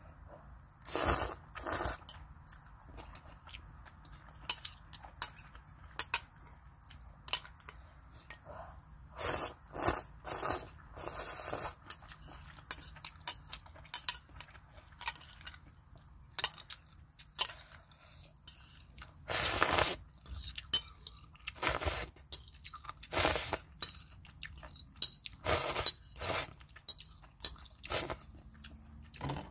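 A person eating ramen: metal chopsticks click and scrape irregularly against the bowl. Several longer noisy bursts of slurping and chewing come in between.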